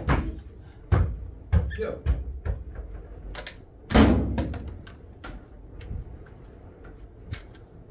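A run of knocks and clatters, with one loud thump about four seconds in and lighter knocks after it.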